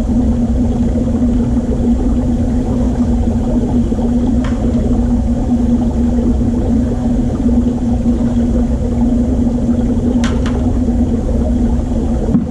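Steady, loud hum of aquarium equipment, a motor drone with a low rumble beneath it, with a couple of faint clicks about four and ten seconds in.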